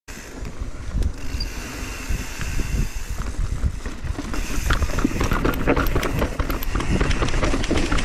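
Mountain bike rolling downhill with wind rumbling on the camera's microphone; about halfway through the tyres reach rough dirt trail and the bike starts to rattle and clatter, getting louder.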